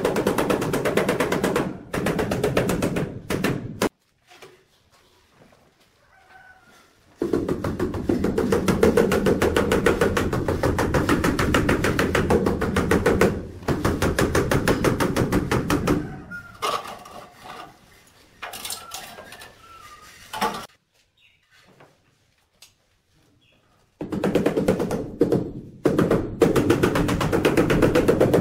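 Rubber mallet tapping ceramic wall tiles to bed them into the mortar: long runs of rapid, even taps, broken by two quiet pauses of a few seconds, about four seconds in and again about twenty seconds in.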